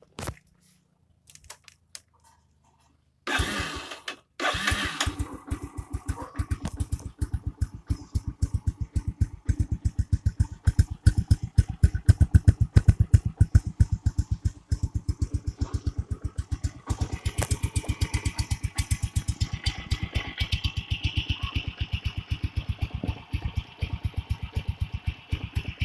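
Yamaha Sirius 110 motorcycle's single-cylinder four-stroke engine starting about three seconds in, then running at idle with even exhaust pulses. The exhaust is a stock Yamaha Exciter muffler with its baffle removed.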